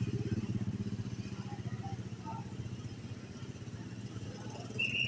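A small vehicle engine running with an even pulse, loudest at the start and slowly fading. A brief high tone sounds near the end.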